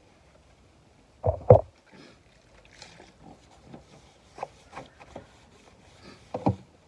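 Cloth wiping over a freshly sanded steel car door, with scattered rubbing and knocking. Two louder thumps come about a second and a half in and again near the end.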